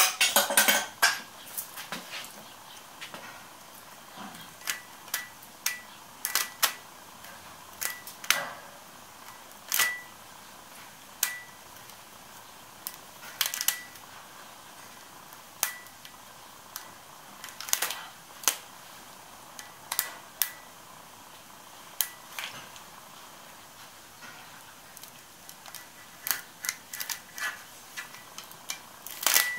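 Irregular sharp clicks and light metallic clinks, roughly one every second or two. Many leave a brief high ring, and they bunch together in a flurry at the start and again near the end. They come from rubber bands being cut and pulled off a glued bronze pad bound to a shaper rocker arm clamped on a steel mill table.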